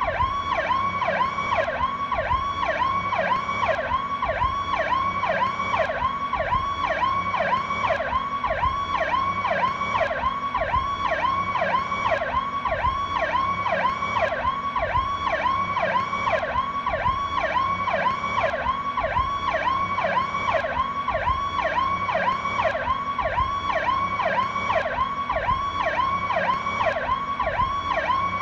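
Police car's Powercall electronic siren cycling continuously in a fast pattern, its pitch sweeping quickly up and dropping back about two to three times a second.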